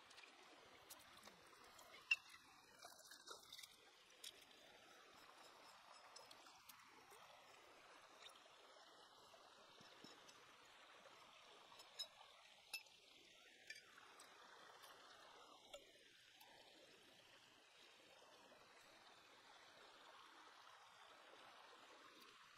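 Faint trickling of a shallow stream running over rocks, with a few short sharp clicks and taps now and then, the loudest about two seconds in.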